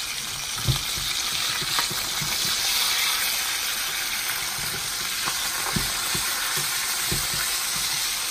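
Swai fillets sizzling steadily as they fry in oil in a cast-iron skillet, with a few dull knocks of a spatula against the pan, the first and loudest about a second in.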